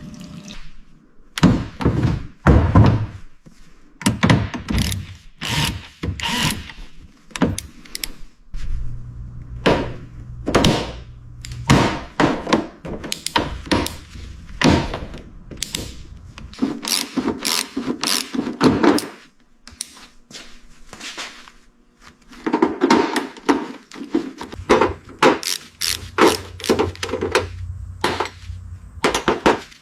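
Many short, irregular knocks and thunks from hand work on a car's body or interior parts, some in quick runs, with a low steady hum under them in two stretches.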